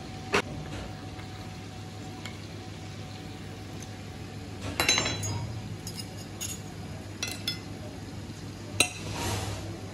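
Metal cutlery clinking and tapping on a ceramic plate while a stuffed tomato is served and cut: a ringing clink about five seconds in, a few lighter taps after it, then a sharp tap near the end followed by a short scrape.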